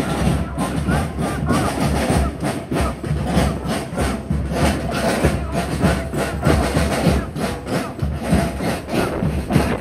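A group of marching drums, snare drums and a bass drum, beaten with sticks in a steady, dense rhythm.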